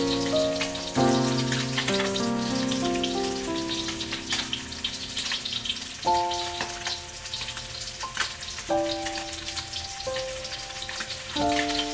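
Two whole scored fish frying in shallow oil in a steel wok, a steady fine crackle and sizzle. Background music of held notes plays over it, the notes changing less often about halfway through.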